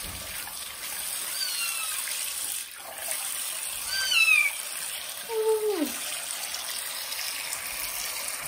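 Young kitten mewing several times, short high-pitched cries that fall in pitch, the loudest about four seconds in. A bathroom tap runs steadily into the sink beneath.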